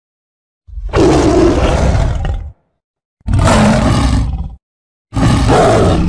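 Ti liger, a tiger–liger hybrid big cat, roaring: three long, loud roars with short silences between them.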